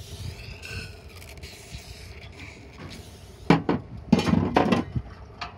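Hands working the metal throttle linkage on a snowblower carburetor. There is soft rubbing and hiss at first, then a burst of loud metallic clicks and clatters about three and a half to five seconds in, followed by a few lighter ticks.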